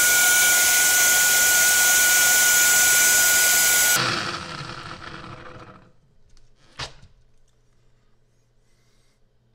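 KitchenAid high-speed blender running flat out on a jar of hot soup: a steady high whine over a loud rush. It is switched off about four seconds in and spins down over the next two seconds, and there is a single click near seven seconds as the jar is handled.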